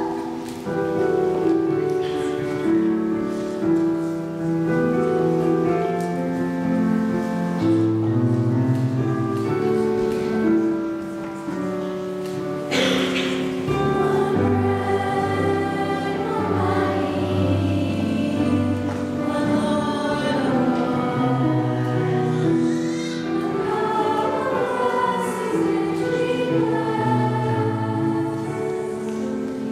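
Church choir singing a hymn with instrumental accompaniment. The opening half is mostly held instrumental chords, and the voices come in about halfway through.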